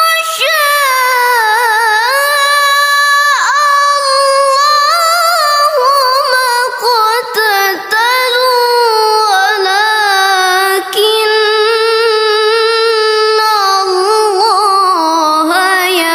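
A Quran reciter's voice in melodic tilawah recitation, holding long, ornamented notes whose pitch wavers and slides, with only brief breaks for breath.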